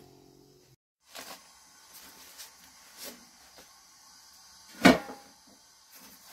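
Handling knocks from baking thin flatbread: a few light taps, then one sharp clack about five seconds in, as the wooden bread stick and sheets of bread meet the metal tray and saj griddle.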